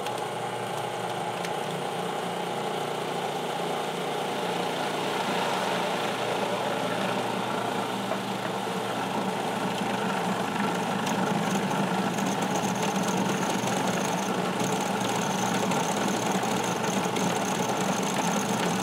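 Cuisinart food processor motor running steadily, its blade mixing flour and cold water into pizza dough. A faint high whine joins the motor sound about eleven seconds in.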